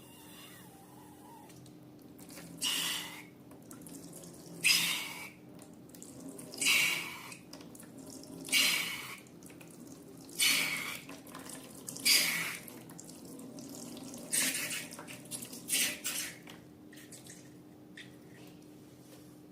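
Wet squirting and squelching of liquid slime ingredients, in separate bursts about every two seconds, about eight in all.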